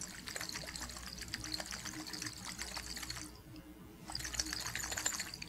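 Lime water sloshing and splashing as it is shaken hard in a stoppered glass flask, in two bursts with a short pause about three seconds in. It is the lime water test: the liquid is being mixed with the gases of burnt wood to show carbon dioxide.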